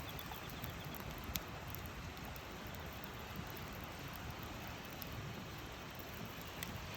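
Campfire burning: a steady crackle and hiss of burning wood, with a few sharper pops, one about a second and a half in and another near the end.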